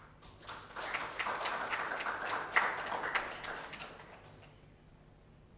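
Audience applauding: the clapping starts about half a second in, swells, and dies away by about four and a half seconds.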